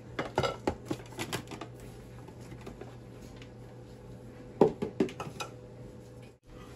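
Dry bread crumbs poured and shaken from a plastic container into a ceramic bowl, giving a quick run of light ticks and taps. About three-quarters of the way through comes a second, louder cluster of clicks and knocks as the container is handled.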